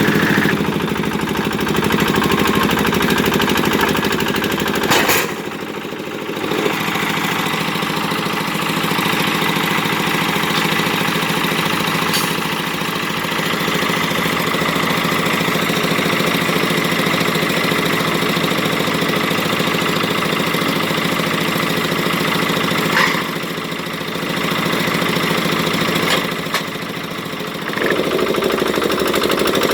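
Rebar bending machine rated for 32 mm bar, running with a steady mechanical drone. Its sound drops briefly about five seconds in, again near the twenty-third second, and once more a few seconds before the end, each change marked by a sharp click.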